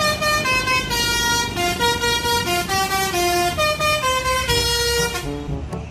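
Bus telolet musical horn (Basuri type) playing a quick multi-note melody of short stepped tones over a low engine rumble, cutting off abruptly near the end.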